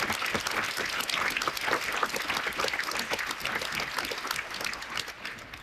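Audience applauding, a dense clapping that dies away near the end.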